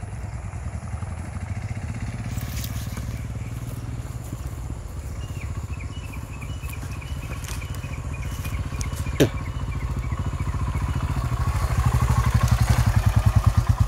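Royal Enfield Himalayan's 411 cc single-cylinder engine running at low revs as the motorcycle approaches, growing louder over the last few seconds as it pulls up close. A single sharp click about nine seconds in.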